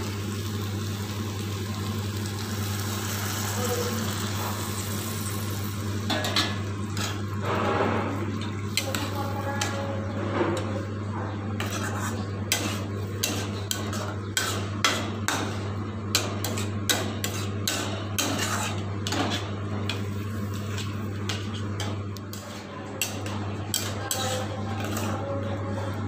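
Metal spatula scraping and clicking against a metal kadai as a frying onion-tomato masala is stirred, with many sharp knocks from about six seconds in. Under it runs a faint frying hiss and a steady low hum.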